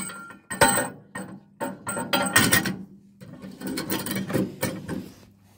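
Irregular metallic clanks and knocks as steel parts at the front of an Eicher tractor are handled, the bent steel starting handle among them; the clanks come in a few clusters with short pauses between.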